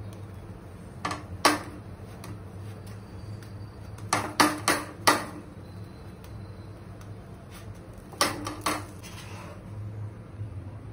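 Wooden spatula knocking and tapping against a tawa while pressing and turning a rice bhakri. There are two knocks about a second in, a quick run of four in the middle, and three more later on, over a low steady hum.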